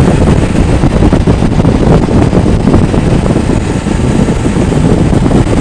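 Steady wind rush on the microphone over the engine and road noise of a motorcycle cruising at highway speed.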